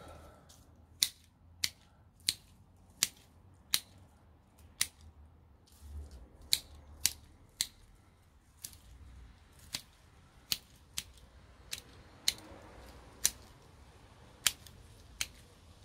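Hand secateurs snipping repeatedly while trimming a shrub, about eighteen sharp clicks, one every half second to a second with short pauses between runs.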